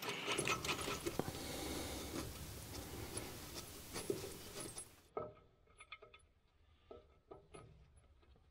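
Faint scattered clicks and rubbing of hand work with small metal parts. About five seconds in, the background drops out suddenly to near silence, leaving a few faint clicks.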